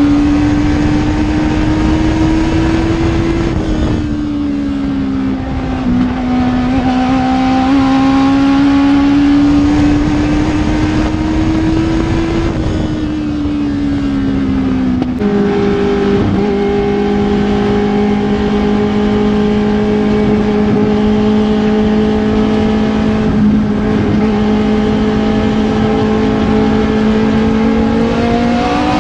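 Legends race car engine heard from inside the cockpit at racing speed. Its pitch climbs along the straights and drops as the driver lifts for the turns. About halfway through it settles into a steady, lower drone at caution pace, then starts rising again near the end.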